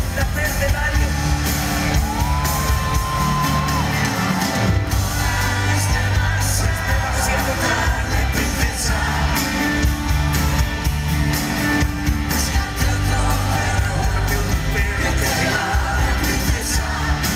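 Live band music: a male voice singing over guitar and keyboards.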